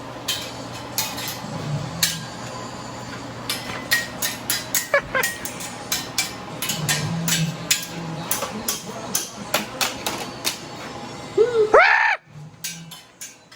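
A run of irregular sharp knocks and taps over a steady background hum. Near the end comes a short squeal that rises and falls, and then the hum stops suddenly.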